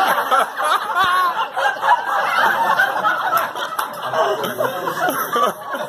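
Several people talking over one another and laughing.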